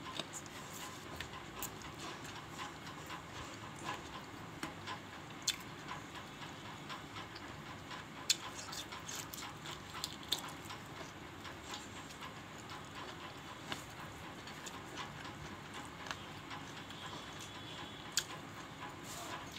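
Close-up eating sounds: chewing and wet mouth clicks and smacks from eating rice and curry by hand, many small irregular clicks with a few sharper smacks, over a faint steady hiss.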